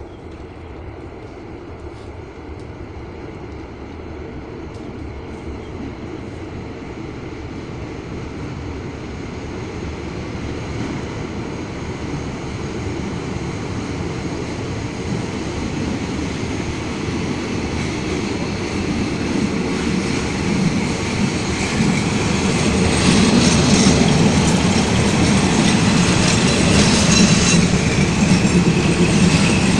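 Diesel railcar coming through a long railway tunnel, its engine and wheel rumble growing steadily louder from inside the tunnel, then loudest as it runs out of the tunnel mouth and past near the end, with wheel clatter and squealing on the rails.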